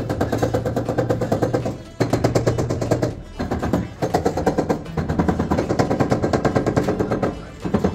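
Rapid runs of mallet blows on a marble stair tread, bedding the stone slab down into fresh tile adhesive, with brief pauses between runs.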